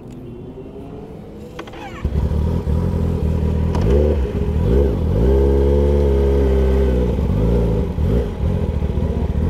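Kawasaki ZX-10R's inline-four engine starting about two seconds in, then revved up and down a few times before running steadily as the bike rolls off.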